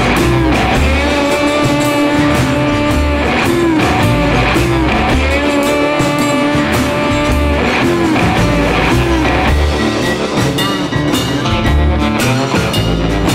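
Background music: guitar-led rock with a steady beat and sustained, bending lead notes.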